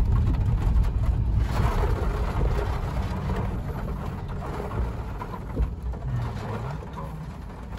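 Rain falling on a car, heard from inside the cabin over the car's low rumble, with small scattered ticks of drops. A windshield wiper sweeps across about six seconds in.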